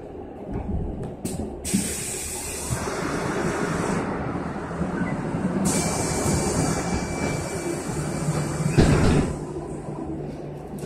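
Inside a moving electric bus: steady road rumble, with a hiss that sets in and fades twice, a faint high whine for a few seconds, and a thump about nine seconds in.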